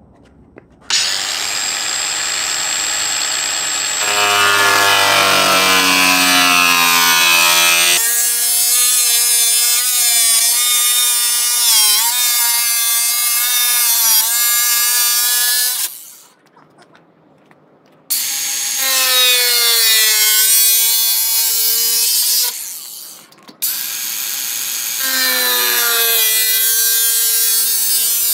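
Handheld cordless power tool cutting a hole through a car's sheet-metal front fender: a loud, high motor whine that sags and dips in pitch as the tool bites into the panel. It stops twice for a moment and starts again.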